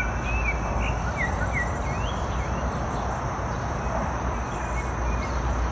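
Steady outdoor noise, a rushing hiss over a deep rumble, with a string of short high bird chirps through the first two seconds.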